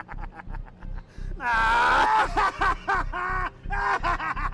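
A person's voice in loud, high-pitched outbursts broken into rapid short bursts, over a faint low repeating pulse.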